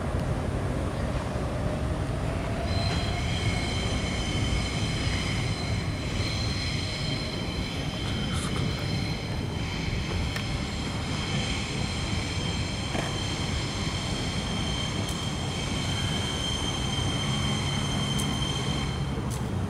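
Commuter train on an elevated concrete viaduct, a steady low rumble with a high, steady wheel squeal that sets in about three seconds in and stops just before the end.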